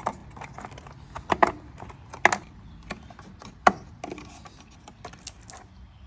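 Refrigerator control board being fitted back into its housing: plastic wire-harness plugs and the board clicking into place, with a handful of sharp, irregularly spaced clicks over light handling rustle.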